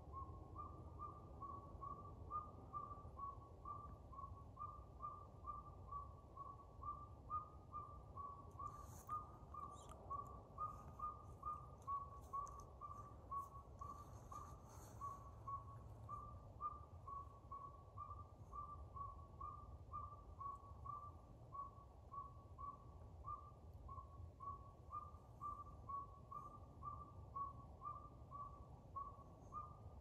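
Northern saw-whet owl singing its advertising song: a long, unbroken series of short whistled toots at about two per second, holding one pitch.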